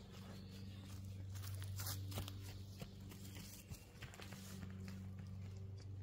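Nylon fabric of a pop-up hub tent rustling and crinkling as its rain fly is pulled over, with scattered footsteps on leaf litter. A steady low hum runs underneath.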